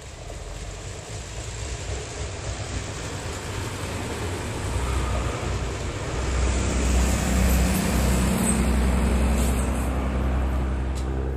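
Red Schienenbus diesel railbus passing close by: its underfloor diesel engines drone low and its wheels rumble on the rails. The sound swells steadily and is loudest in the second half as the cars go by.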